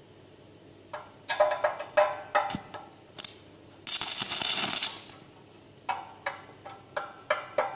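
Irregular metallic clinks and taps with short ringing, with a harsh scratching noise lasting about a second midway through.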